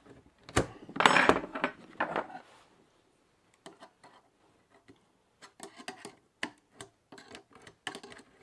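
Steel spanner clinking against the nut and coil spring of a sprung leather bicycle saddle as the nut inside the spring is turned loose. A loud metallic clatter comes about a second in, then scattered light clicks.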